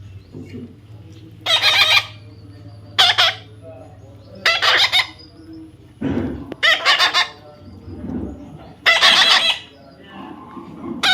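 Parrot squawking: a series of loud, harsh calls about every second and a half, with softer, lower calls in between.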